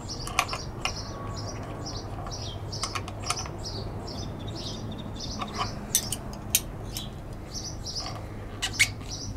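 A few sharp clicks of wrenches against the mirror stem and lock nuts of a motorcycle mirror extender, while a small bird chirps over and over in the background, a few chirps a second.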